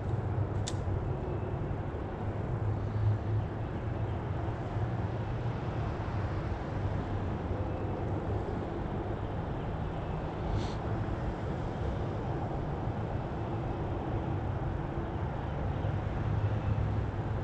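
Steady low rumble of distant road traffic, with two faint clicks, one just under a second in and one about ten seconds in.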